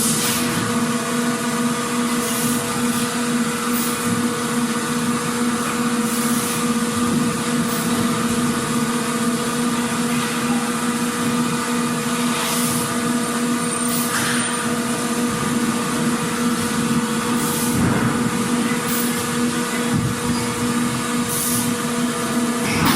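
Factory machinery running with a steady hum of several held tones, with short hissing bursts every few seconds.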